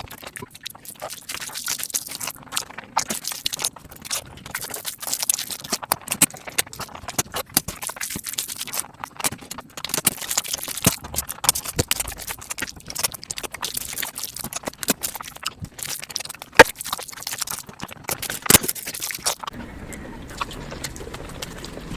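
Eating sounds sped up many times over: chewing, lip smacks and mouth clicks blur into a dense, rapid clatter of wet clicks. Near the end the clicks stop and a steady low hum takes over.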